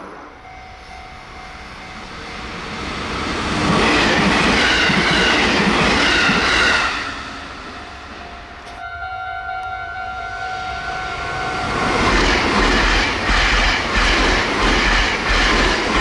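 Two trains rush past a level crossing at speed, one about 3 to 7 seconds in and another from about 12 seconds, the second with a rhythmic clatter of wheels over rail joints. A level crossing warning bell rings steadily at the start and again from about 9 seconds.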